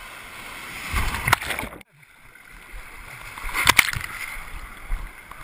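Shallow sea water splashing and sloshing right at the camera, with louder splashes about a second in and again past three and a half seconds. The sound cuts out briefly just before two seconds in.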